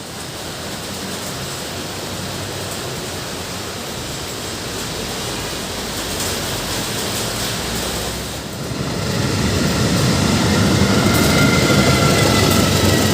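Train running into a station, its rumble growing louder about eight seconds in. Near the end a faint, steady high squeal joins in.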